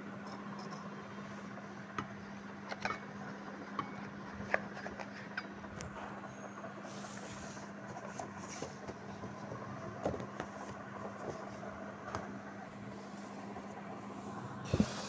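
Scattered light clicks and knocks of a stainless steel vacuum flask and steel cups being handled in their cardboard gift box, the loudest knock near the end, over a steady low hum.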